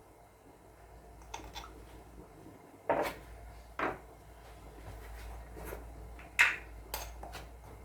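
Kitchen utensils and dishes clinking and knocking as ingredients are added to a cooking pot: a handful of short, sharp clacks, the loudest about three seconds in and again past six seconds.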